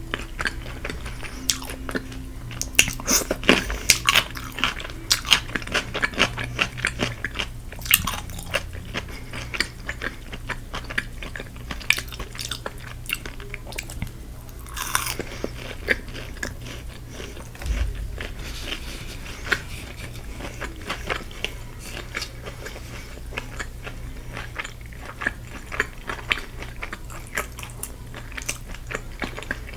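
Close-up biting and chewing of crispy Korean fried chicken: many irregular sharp crunches of the fried coating, thickest in the first third, over a steady low hum.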